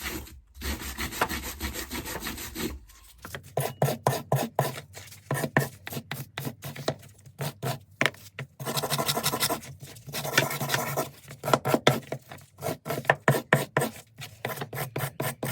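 Hand wire brush scrubbing dirt off a BMW E60's rear brake pads: quick back-and-forth scraping strokes, about three a second, with a couple of longer continuous scrapes, cleaning the pads so they slide freely in the caliper.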